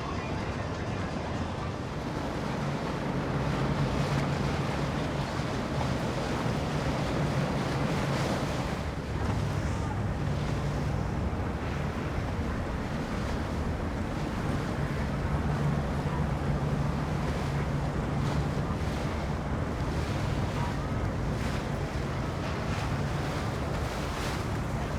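Motorboat engine running with a steady low hum, over rushing water and wind buffeting the microphone.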